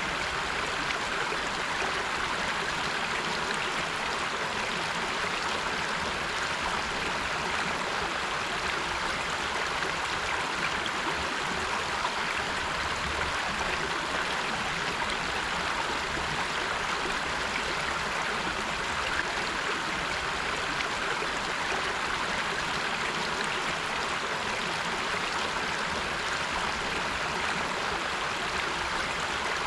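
River water flowing steadily over rocks, an even rushing that doesn't change.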